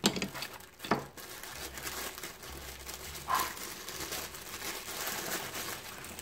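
Paper or plastic packaging crinkling and rustling as it is handled, with two sharp knocks, the first right at the start and the second about a second in.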